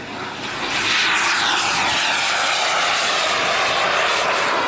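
Engines of a large radio-controlled model Messerschmitt Me 262 at full power during take-off and climb-out. The sound swells to loud within the first second, then becomes a high-pitched whine whose pitch slides steadily downward as the model passes.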